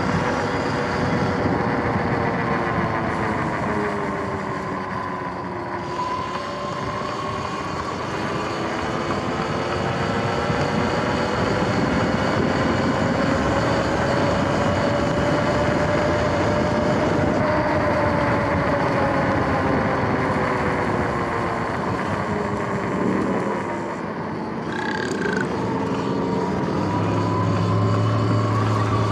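Electric dirt bike's motor and drive whining under steady road and wind rush, the whine falling in pitch as the bike slows and rising again as it speeds up, twice.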